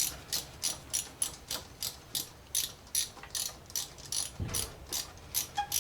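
Hand ratchet wrench clicking steadily, about four clicks a second, as it runs in the mounting screws of a small-engine ignition coil. There is a dull thump about four and a half seconds in.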